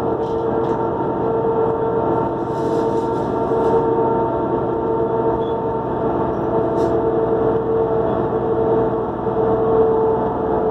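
New Flyer D40LF transit bus's diesel engine running under way, heard on board, with a steady high turbocharger whine held over the engine rumble. A few short rattles and clicks come through, most about three seconds in.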